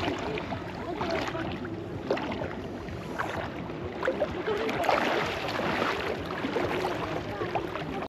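River water splashing and gurgling in a shallow pool, with irregular small splashes.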